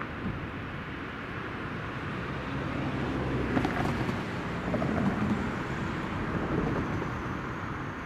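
City street traffic: cars driving through the intersection with engine and tyre noise, swelling for a few seconds in the middle as vehicles pass close by.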